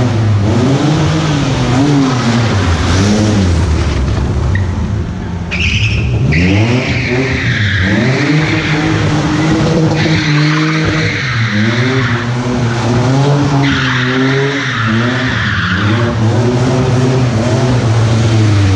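BMW E30 coupe's M30B35 straight-six revving up and down repeatedly as the car is thrown around, with the tyres squealing three times, about five, ten and fourteen seconds in.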